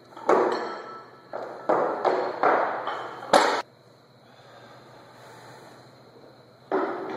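Barbell loaded with bumper plates dropped to the floor: a loud thud with metal clanking and ringing, then a run of smaller bounces and rattles of the plates and bar over about three seconds. A further clatter of knocks comes near the end.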